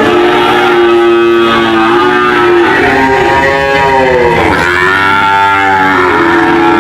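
Cattle mooing: long, loud, overlapping moos with no break. The pitch dips and rises again about four and a half seconds in.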